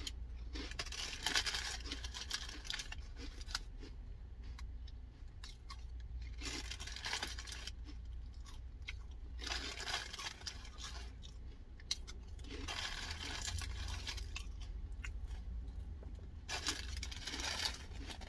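Rustling and crinkling of paper food wrappers mixed with crunchy chewing, in irregular bursts over a steady low hum.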